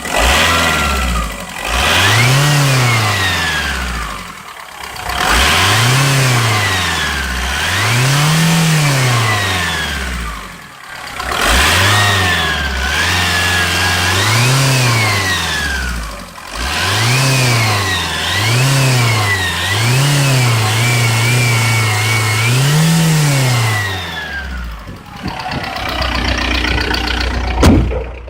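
VW AGR 1.9 TDI turbodiesel engine revved about ten times in quick succession, then settling to idle near the end. A high whistle rises and falls with each rev, which the owner suspects is turbo whine. A sharp click comes just before the end.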